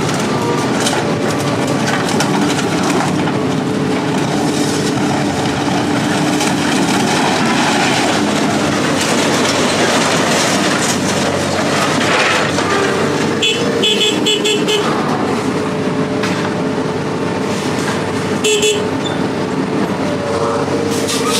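A vehicle engine running steadily under dense metallic rattling, with a few short high squeaks about two-thirds of the way through.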